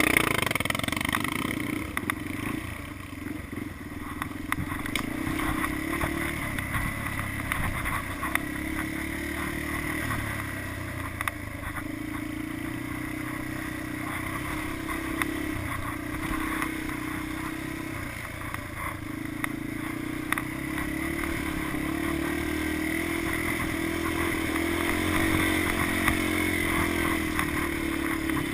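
Yamaha Lander 250 single-cylinder four-stroke motorcycle engine running in low gear off-road, its note rising and dipping slightly, with scattered clicks and rattles.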